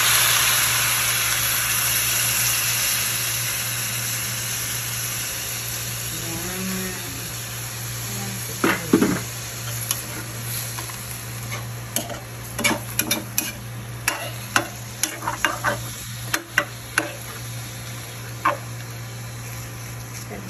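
Hot metal pan of roast pork and onions sizzling as a little water hits it, the hiss easing off over the first several seconds. Then a metal spoon stirring the pieces, with repeated sharp clicks and scrapes against the pan.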